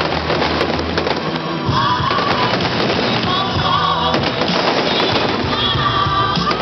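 A fireworks display: a dense run of firework bangs and crackles going off over loud music.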